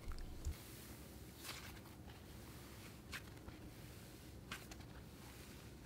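Dense cloud slime being stretched and pulled apart by hand: faint, with a few soft crackles about a second and a half apart.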